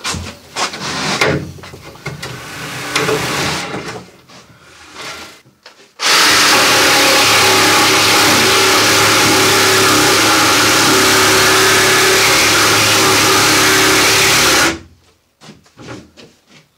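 Handheld jigsaw cutting down the edge of a plywood wall board to trim off an angle. It starts about six seconds in, runs steadily for about nine seconds and stops abruptly, with scattered knocks and clatter of the board being handled before and after.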